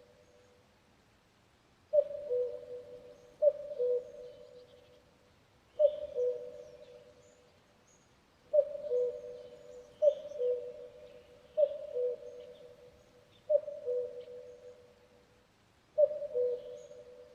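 Common cuckoo calling its two-note "cu-ckoo", a higher note dropping to a lower one, eight times at uneven intervals of one and a half to three seconds, each call trailing off in an echo. Faint chirps of other birds sound high above it.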